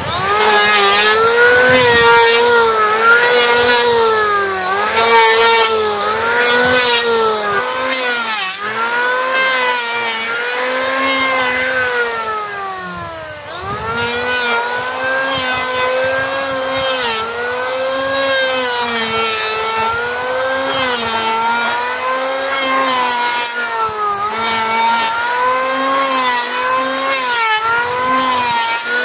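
Electric hand planer running as it is pushed back and forth along a wooden board, planing the surface smooth; its whine sags and recovers with each pass as the blades bite into the wood. Around the middle the motor slows sharply and then spins back up.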